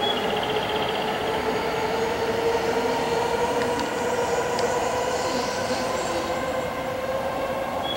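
KiHa 40-series diesel railcar running at the station, a steady rumble with an engine and drive hum that rises slowly in pitch.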